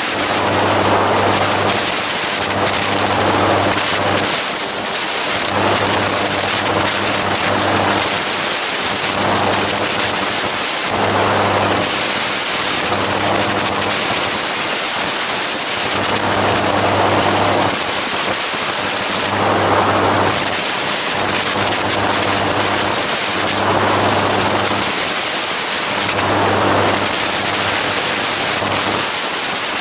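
Gyroplane in flight: a steady engine and rotor drone under heavy wind rush on the microphone. The low hum swells and fades every couple of seconds.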